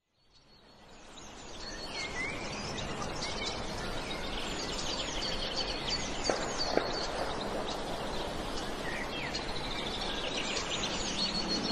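Many small birds chirping over a steady outdoor hiss, fading in over the first two seconds. Two brief clicks come a little past the middle.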